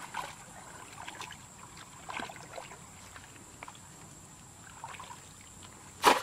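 Shallow water sloshing and small splashes as a bamboo plunge basket is pushed down into the pond bottom by hand, with one sharper, louder splash near the end.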